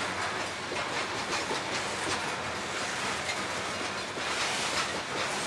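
Covered hopper cars of a CSX grain train rolling past: steel wheels on the rails making a steady rolling noise with irregular clacks.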